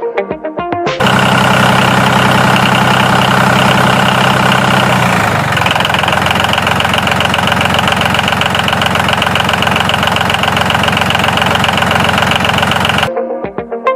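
Small motor of a DIY miniature farm machine model running steadily with a rapid buzzing rattle, starting and stopping abruptly; about four seconds after it starts, its tone shifts as the low hum drops out and a higher whine takes over.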